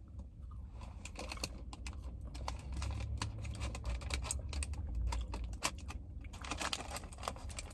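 A person chewing a breaded, cheese-stuffed jalapeño bite close to the microphone: many quick wet mouth clicks and smacks, irregular, with no words.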